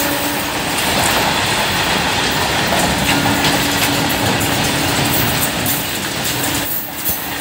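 Freight train of covered goods wagons passing close by: steady rumble and rattle of the wagons' wheels on the rails.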